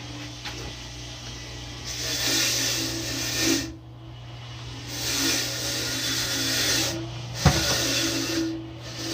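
Rough scraping strokes on a new drum-brake lining worked at a bench vise, coming in stretches of a second or two with short pauses, over a steady low hum. A single sharp click comes about three-quarters of the way through.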